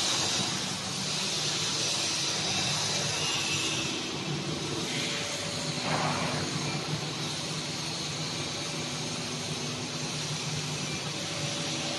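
Steady machine noise from a 400-tonne hydraulic tensile testing machine running during a proof-load test of a spreader beam: a low hum with a hiss over it. There is a brief swell of noise about six seconds in.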